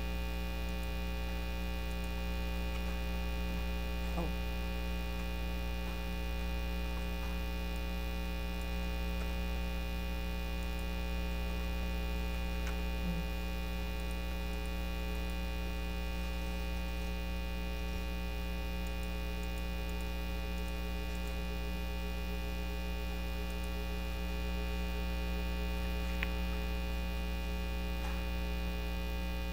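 Steady low electrical hum, mains hum with a stack of higher overtones, and a few faint clicks.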